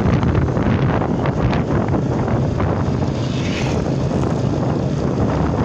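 Wind buffeting the microphone and road noise from riding along a street on an open vehicle, loud and steady. A brief hiss rises over it about three and a half seconds in.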